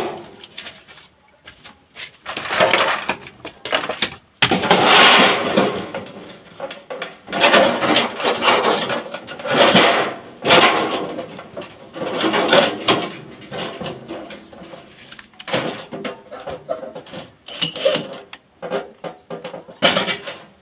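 Sheet metal for a gutter being worked by hand: a run of irregular noisy bursts, each about a second long.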